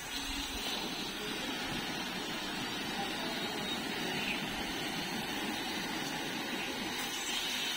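Water jetting from a brass garden-hose spray nozzle and splashing onto a concrete path: a steady hiss and spatter that holds even throughout.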